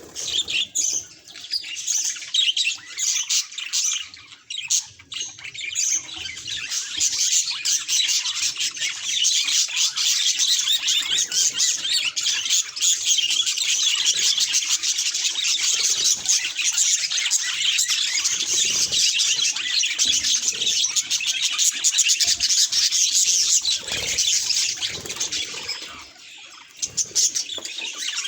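Budgerigar chattering and warbling, a dense run of rapid chirps. It is patchy at first and continuous after a few seconds, with a brief lull near the end.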